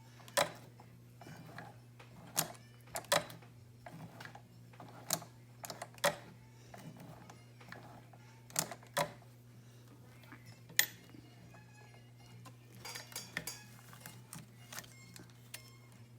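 Singer 211G151 heavy-duty needle-feed industrial sewing machine turned slowly by hand, stitching through three layers of leather: irregular sharp mechanical clicks and knocks, about one or two a second, over a steady low hum.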